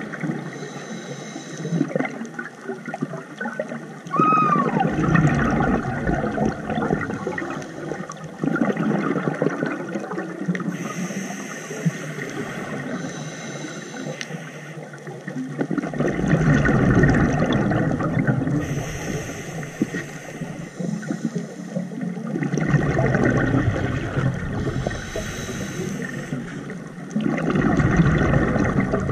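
Scuba diver breathing through a regulator underwater, several breath cycles: a short hiss on each inhale, then a longer low rumble of exhaled bubbles.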